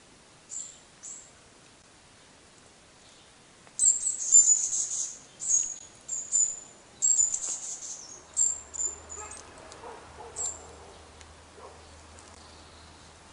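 Small birds chirping: short, high calls, a couple at first, then a busy run of them from about four seconds in that thins out after about ten seconds.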